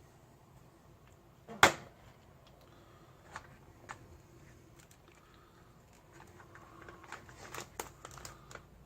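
Handling of a meal pouch and a dish on a table: one sharp knock about a second and a half in, a couple of light clicks after it, then a run of small clicks and rustling near the end.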